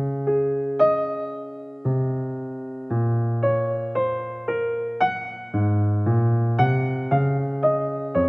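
Background piano music: slow, gentle notes and chords struck roughly once a second, each left to fade away.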